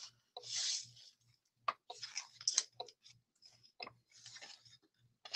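Sheets of Sun Prints specialty paper in a pad being handled and turned over, with short crisp rustles and a few sharp taps. The sharpest and loudest tap comes near the end.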